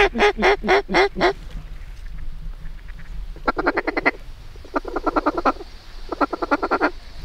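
Duck quacking: a run of about six loud quacks, then short bursts of rapid chatter repeating about every second and a half.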